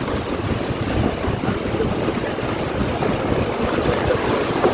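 Heavy rain pouring steadily in a storm, with a low, uneven rushing of wind.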